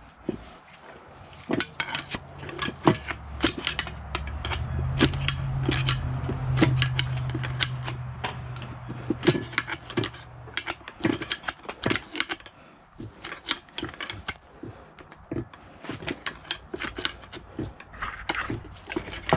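Irregular metallic clicks and clinks of hand tools working bolts on the engine. A low hum builds in the middle and fades about ten seconds in.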